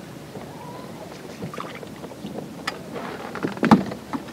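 Wind and water noise around an open bass boat, with a few sharp knocks on the boat; the loudest knock comes about three and a half seconds in.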